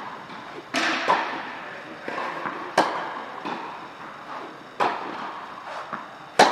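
Tennis rally in an indoor hall: a ball struck by racquets with sharp pops about every two seconds, each echoing briefly, with fainter hits from neighbouring courts in between.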